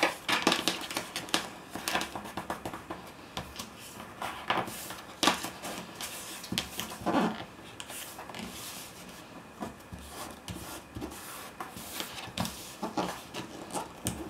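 Paper rustling and crinkling as designer paper is folded over the edges of a cardboard board and pressed down onto double-sided tape, with scattered light taps and clicks of handling on a tabletop and a sharp tap right at the start.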